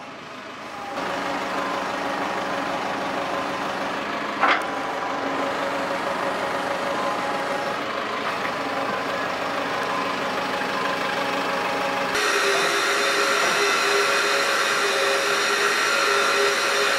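Lorry-mounted crane working off the truck's running engine as a load is lifted from the flatbed, a steady hum with a sharp knock about four seconds in. About twelve seconds in the sound changes abruptly to a louder steady machine hum with high whining tones.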